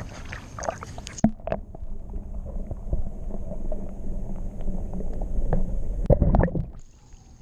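Muffled low rumbling and gurgling of moving water heard with the camera dunked underwater; the high sounds cut off suddenly about a second in. A louder churning swirl comes about six seconds in.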